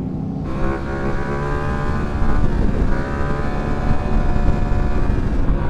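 Motorcycle engine running under way on the road, its note climbing gently, dipping briefly about halfway, then holding steady over a low rumble.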